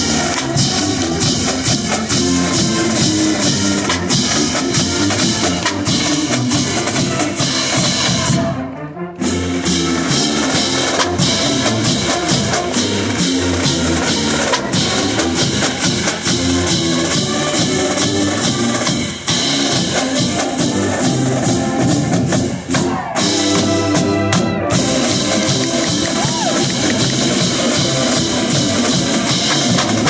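College marching band playing live: brass, with sousaphones carrying the bass line, over a drumline of snare and bass drums. The music breaks off briefly about nine seconds in, then carries on.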